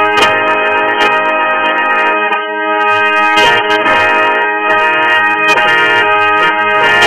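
Music playing steadily, with sustained held notes throughout.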